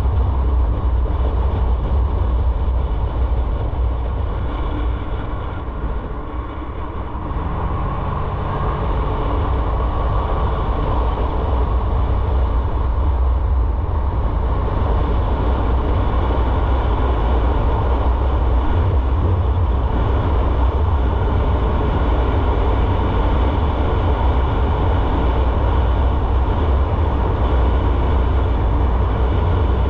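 Motorcycle on the move: a steady low rumble of engine and road noise, dipping briefly about six seconds in.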